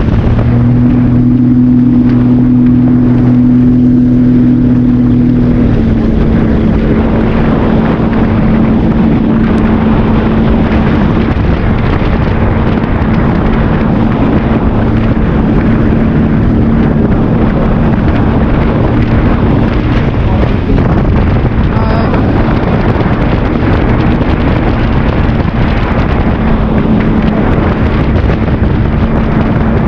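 Jet ski engine running hard at a steady pitch under a loud, continuous rush of noise. Its note eases slightly about six seconds in, then holds steady.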